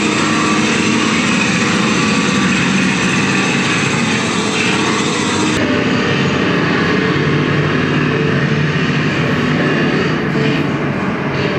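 Loud, dense construction noise: jackhammers and grinders running together without a break. The sound turns slightly duller about five and a half seconds in.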